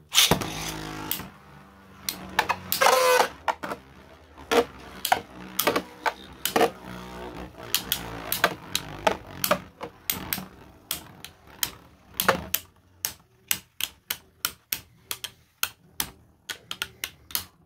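3D-printed Beyblade spinning tops clashing and scraping in a plastic Beyblade stadium: a run of sharp plastic clacks at irregular intervals, coming closer together in the second half, over a faint steady spinning hum.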